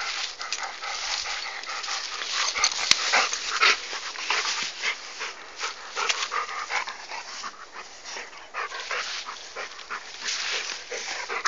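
A dog chewing sugarcane, gnawing and crunching on the hard fibrous stalk as a steady stream of irregular cracks and crunches.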